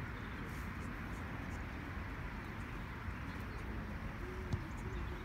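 Outdoor ambience at a football pitch: a steady low rumble and hiss with faint distant voices of players calling. There is one sharp knock about four and a half seconds in.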